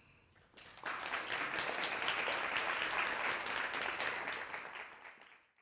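Audience applauding. It starts about half a second in, holds steady, then fades out near the end.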